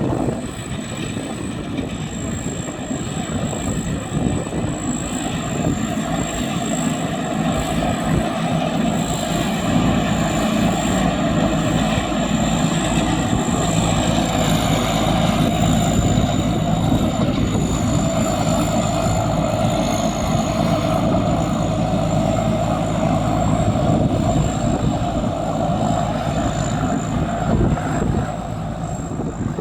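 Rice combine harvester running steadily, its diesel engine humming under the clatter of the threshing and cutting mechanism, with a steady high-pitched whine over it.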